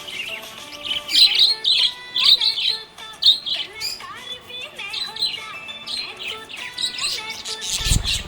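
Budgerigar chirping and warbling in quick, busy runs of high chirps, with a brief low thud near the end.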